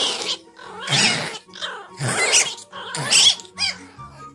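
A dog growling and snarling in four short, harsh bursts, about one a second.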